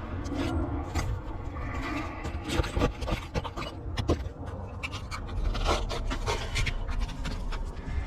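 Irregular scraping, rubbing and clicks of hand work on roof shingles while an opening is cut for a vent, over a steady low rumble.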